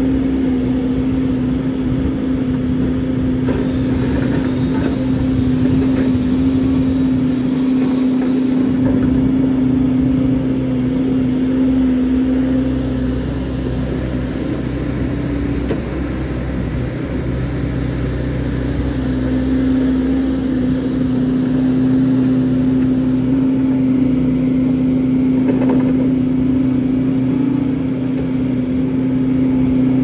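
Large backhoe's diesel engine running steadily with an even hum, its note weakening and wavering for a few seconds in the middle as the machine works.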